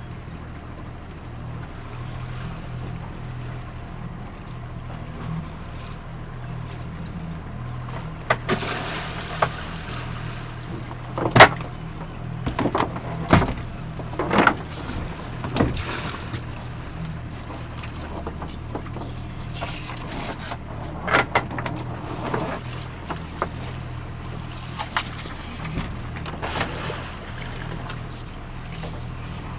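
Outboard motor idling with a steady low hum, while lobster pots are handled and knocked against the boat's deck and gunwale as they are rebaited and stacked. The knocks and clatters come from about eight seconds in, the loudest a sharp knock a few seconds after that.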